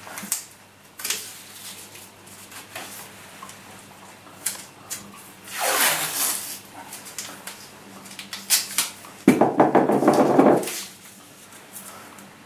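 Masking tape being worked by hand: small clicks and rustles as it is handled and pressed down, with two longer rasping pulls of tape, one about six seconds in and a louder one from about nine to ten and a half seconds in.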